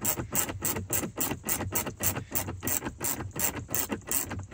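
Small hand ratchet with an extension and socket clicking steadily, about five clicks a second, as it does up a dashboard panel screw.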